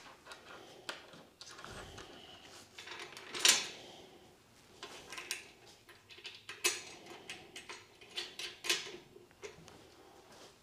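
Scattered light metallic clicks and clinks of bolts being handled and threaded in by hand on a CNC fourth-axis mount, with a few sharper knocks spaced through.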